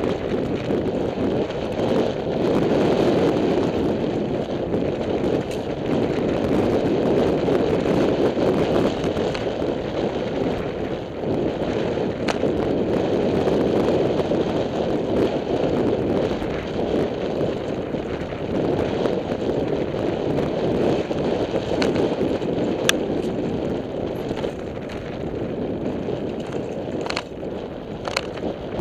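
Downhill mountain bike descending a dirt fire road, heard from a helmet camera: a steady rush of wind on the microphone and tyres rolling over dirt and gravel. A few sharp clicks and rattles from the bike, mostly near the end.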